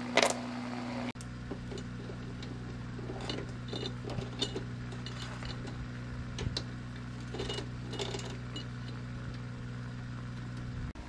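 Motorcycle drive chain and metal parts clinking and rattling as they are handled, with one louder metallic clatter just at the start and light clinks in two clusters later, over a steady low hum.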